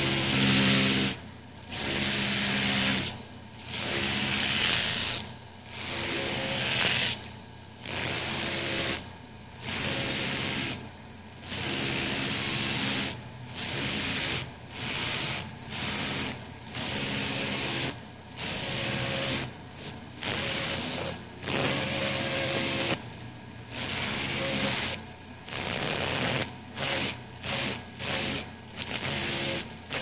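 Dentist's drill repeatedly starting, running with a high whine for a second or two, and stopping. The bursts come quicker and shorter toward the end.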